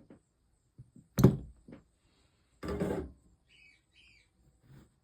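A sharp knock about a second in, then a longer, rattling knock in the middle, as hard things are handled on a work table. A small bird chirps twice near the end.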